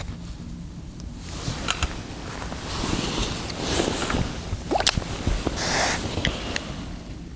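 Campfire crackling with scattered sharp pops, under rustling, handling noise that swells twice, about three and six seconds in.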